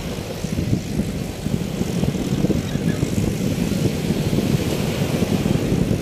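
Wind buffeting the microphone in a steady low rumble, over the wash of small waves breaking on a sandy shore.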